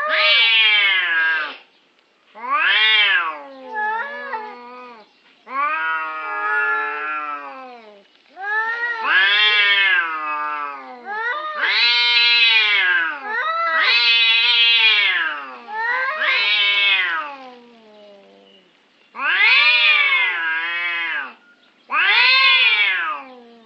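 Domestic cat meowing over and over in long, drawn-out calls, each rising and then falling in pitch, about ten in a row with short pauses between them.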